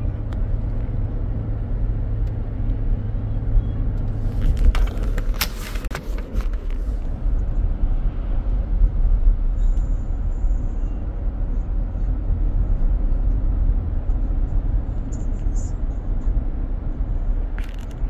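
Steady low rumble of a car driving, heard from inside the cabin. A short cluster of sharp clicks and knocks comes about four to seven seconds in.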